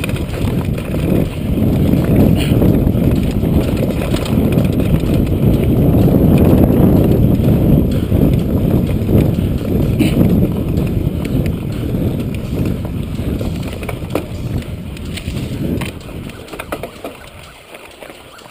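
Downhill mountain bike ridden fast over a rough dirt and gravel trail: a steady low rush of wind on the microphone and tyre rumble, with scattered knocks and rattles from the bike. The rush dies down over the last couple of seconds.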